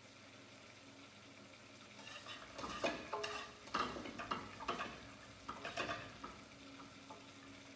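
Cauliflower rice being stir-fried in a pan: a faint sizzle, then from about two and a half seconds in a spatula scrapes and knocks against the pan several times as the rice is stirred.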